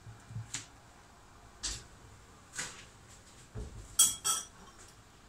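A few soft knocks and taps, then two sharp, ringing clinks of ceramic crockery about four seconds in as a small bowl is taken out and set down.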